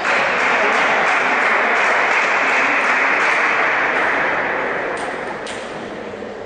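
Spectators applauding, a sudden burst of clapping that holds for about four seconds and then dies away. Two sharp clicks of a table tennis ball come near the end.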